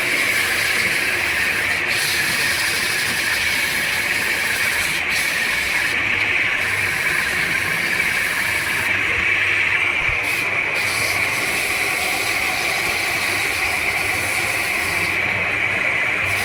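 Sandpaper held against the spinning, rusty shaft of a window AC fan motor while the motor runs, making a steady hiss. The rust is being sanded off so the worn bearings can be pulled off the shaft.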